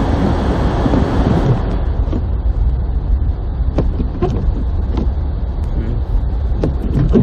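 Car cabin noise while driving on snowy roads: a steady low engine and road rumble, with a brighter hiss of tyres on slush for the first second or so. Scattered irregular clicks and knocks come through the car body.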